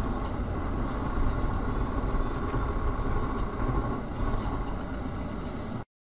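Steady road and engine noise of a moving car, with no impact. It cuts off abruptly near the end.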